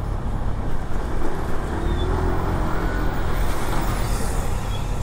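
Road traffic: vehicle engines and tyres making a steady low rumble, with an engine tone rising and falling between about one and three seconds in and a soft hiss a little after three seconds.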